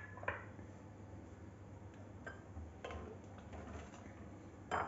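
A spatula stirring in a steel pot of milk and sevai, giving a few faint scrapes and clinks against the pot, with a sharper knock near the end.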